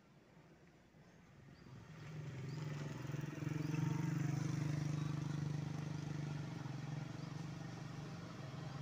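Mitsubishi Fuso Canter HD 125 PS dump truck's four-cylinder diesel engine running under load as the truck approaches, swelling in level about two seconds in and loudest around the middle, with a fairly steady pitch.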